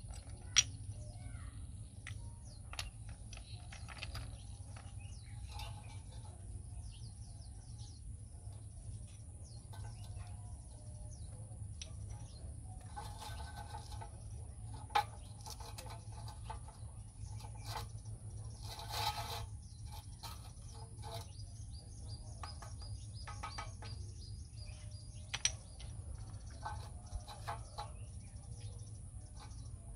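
Stone cladding strips clicking and tapping as they are set by hand onto a pillar, with a few short scrapes, over a steady low rumble. Birds chirp in the background, most clearly about two-thirds of the way through.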